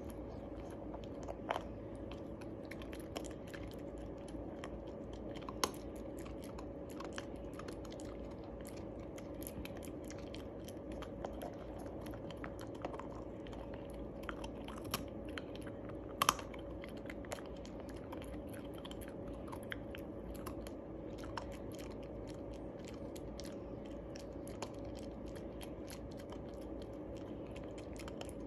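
Shiba Inu crunching and chewing Milk-Bone dog biscuits: irregular crisp cracks and bites, the sharpest about halfway through.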